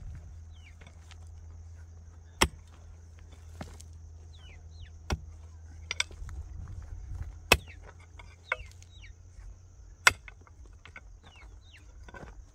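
Heavy digging tool striking hard ground, a sharp blow about every two and a half seconds, four in all, with lighter knocks between. Birds chirp throughout.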